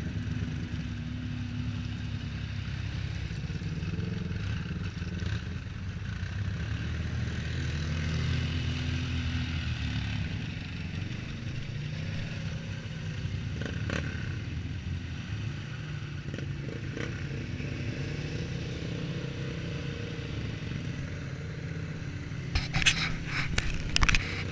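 Off-road vehicle engines running at low speed on a trail, a steady low drone that shifts in pitch now and then. Near the end comes a burst of sharp clattering knocks.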